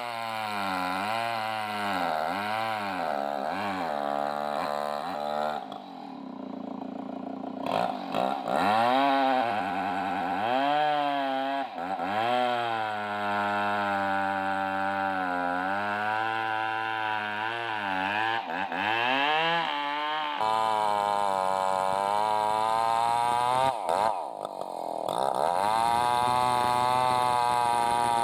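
Two-stroke chainsaw cutting into large timber logs to trim them; the engine revs up and sags back again and again, with a few abrupt breaks.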